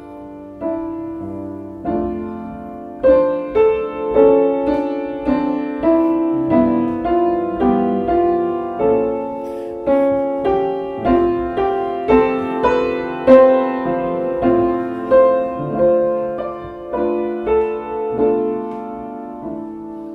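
Solo piano playing a slow melody: single notes and chords struck roughly twice a second, each ringing and fading. The playing gets louder about three seconds in.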